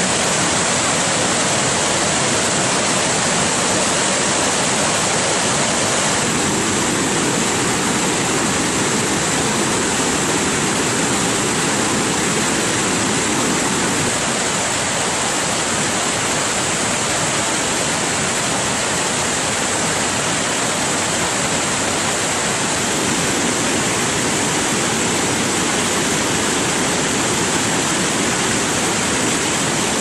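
Waterfall in high flow: heavy water rushing and churning down a wide rock slope, a steady loud rush.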